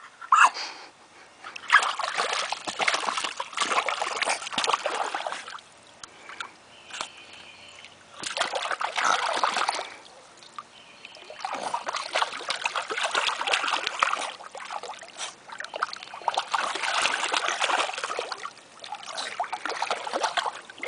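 Water splashing from a small puppy paddling as it swims, in several bouts a few seconds long with short quieter pauses between them.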